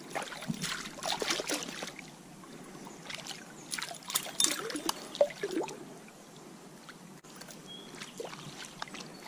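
Water splashing and trickling in a stream, in irregular bursts that cluster in the first two seconds and again from about three and a half to six seconds in, over a steady background of running water.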